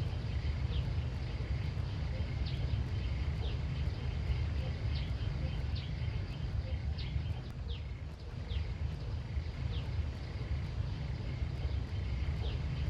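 Rural outdoor ambience: short, high chirps repeating irregularly over a steady low rumble.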